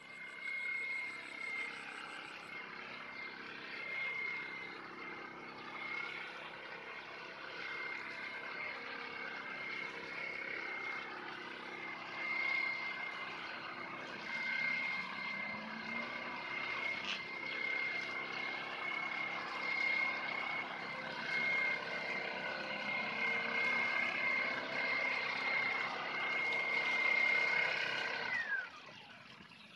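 Backpack mist blower's two-stroke engine and fan running steadily at high speed with a constant high whine, blowing out mung bean seed. About a second before the end the whine falls sharply in pitch and the sound drops away as the engine slows.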